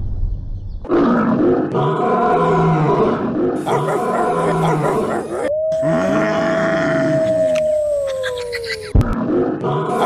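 Monster-like roaring and growling sound effects over a low pulsing beat, then a long held tone that slowly sinks in pitch. A beat starts again near the end.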